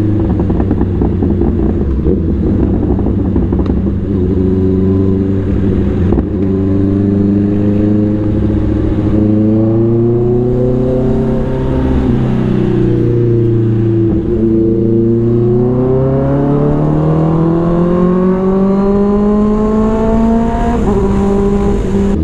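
Big-bike motorcycle engine running under way. Its pitch dips about twelve to fourteen seconds in as the bike slows, then climbs steadily as it accelerates, with a short break near the end at a gear change.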